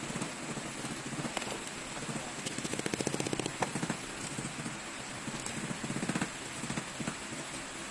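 Small metal clicks and rattles of hand tools working on the gear housing of a battery strapping tool's tension motor, with a fast run of ticks about a third of the way in, over a steady hiss.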